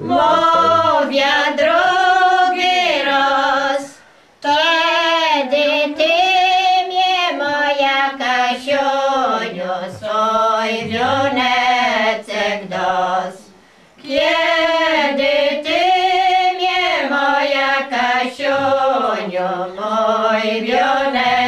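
Village women singing a traditional Polish folk song together, unaccompanied, in long drawn-out phrases. They break off for breath about four seconds in and again about fourteen seconds in.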